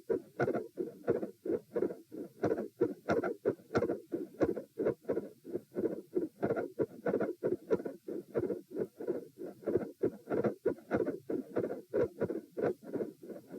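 A human heartbeat heard through a stethoscope while seated, at about 90 beats a minute: steady paired lub-dub thuds, with a split second heart sound and a mid-systolic murmur.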